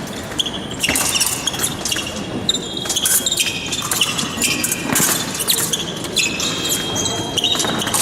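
Fencers' shoes squeaking in short high squeals on the piste during an épée bout, one squeal held for about a second near the end, with scattered sharp knocks of footwork and blade contact.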